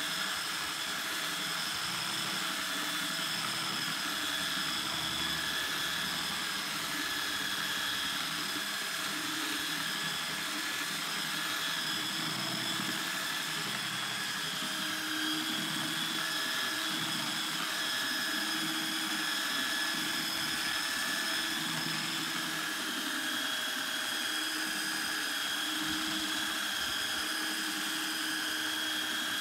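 Electric power sander running steadily on a wooden tabletop, a constant motor whine over a sanding rumble that swells and eases as the sander is pressed and moved across the wood.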